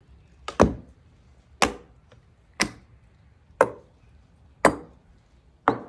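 Six sharp knocks, evenly spaced about a second apart, each dying away quickly.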